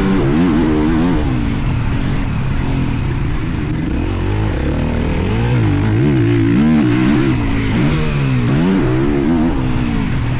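A motocross bike's engine running hard on the track, its pitch rising and falling again and again as the throttle is opened and closed through the turns and jumps.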